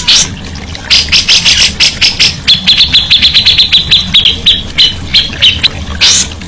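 Songbird calling: a string of loud, sharp, high chirps, then a fast run of short high ticking notes, about eight a second, that slows and breaks up near the end.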